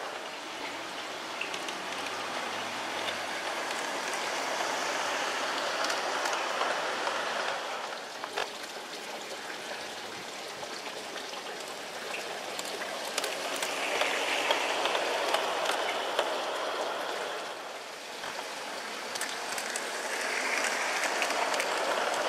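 G-scale model passenger train rolling along garden-railway track: a steady rattling rush of wheels on rail that swells as the train runs close by, with a few sharp clicks over rail joints.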